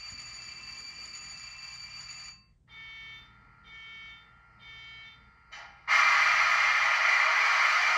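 Electronic locomotive sounds from an HO-scale Soundtraxx Tsunami2 sound decoder, played through its small 28 mm speaker. A steady tonal sound cuts off about two and a half seconds in, three short tones follow under a second apart, and a much louder, fuller sound starts about six seconds in and holds.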